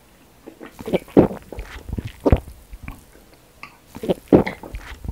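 Two people gulping water from drinking glasses close to the microphone: a string of uneven swallows, about six or seven across the few seconds.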